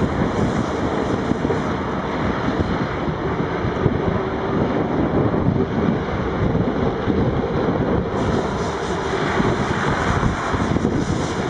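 Diesel engines of wheel loaders working in a quarry, a steady mechanical noise as one loader digs into a gravel pile and another drives by.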